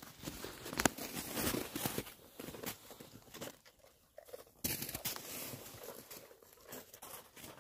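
Footsteps crunching in trampled snow, an irregular run of crunches with a sharp louder one about a second in.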